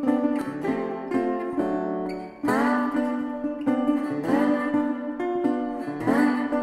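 Background music on a plucked-string instrument, like an acoustic guitar: a chord strummed about two and a half seconds in and again near the end, with single notes picked in between.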